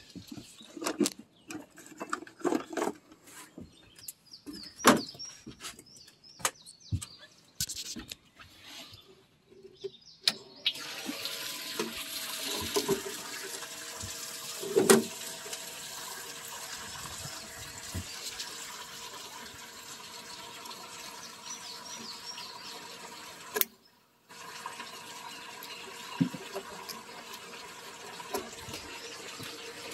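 Knocks and clatter on an aluminum boat as a tool is fetched from a compartment, then a steady rush of running water begins about a third of the way in and carries on, with a few clicks over it.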